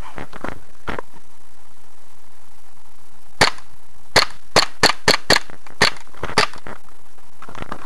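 Gas-powered airsoft Beretta M9 pistol firing about nine shots in quick succession, starting about three and a half seconds in.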